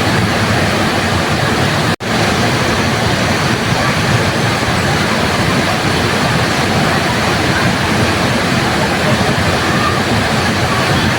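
Waterfall rushing in a steady, dense roar of water noise. About two seconds in the sound cuts out for an instant and swells straight back, like a splice where the recording loops.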